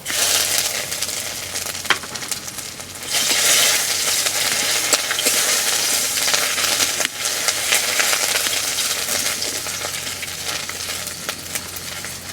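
Ginger paste frying in hot mustard oil in a kadai while being stirred: a loud sizzle that starts suddenly, grows louder about three seconds in and eases off near the end, with a few sharp clicks.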